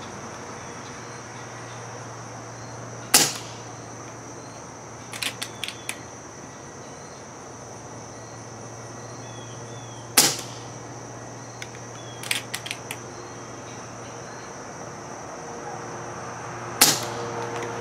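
Three shots from an FX Streamline .22 PCP air rifle with its factory shrouded barrel, on its lowest power setting. Each shot is a sharp crack, about seven seconds apart, and a few lighter clicks follow each one a couple of seconds later.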